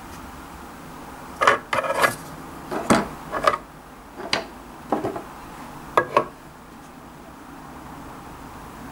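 Plastic SM-SH11 bike cleats lifted off a plastic electronic kitchen scale and a Shimano Ultegra PD-6800 pedal set down on it: a string of sharp clicks and clatters in several small clusters, stopping about six seconds in.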